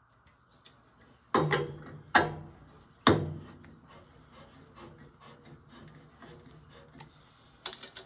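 Three sharp metallic knocks on a copper water-heater pipe, each with a short ring, then light ticking and rubbing as a tubing cutter is fitted onto the pipe, and one more knock near the end.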